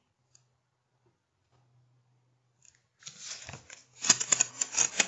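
Rustling, crackling handling noise with many small sharp clicks as the rifle and its scope are moved, starting about three seconds in and loudest near the end.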